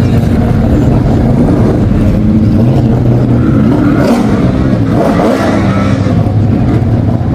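Speedway race car engines running loud, with revving that rises in pitch about four and five seconds in.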